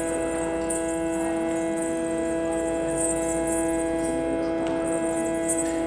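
Steady, unchanging drone of held tones, a tonic with its fifth and octave above, typical of the shruti drone that accompanies Yakshagana.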